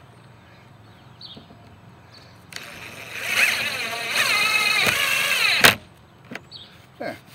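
Cordless DeWalt driver running a screw through a cable-entry housing into the van's sheet-metal roof: it starts about two and a half seconds in, runs for about three seconds and cuts off suddenly. A few light clicks follow as the driver is lifted away.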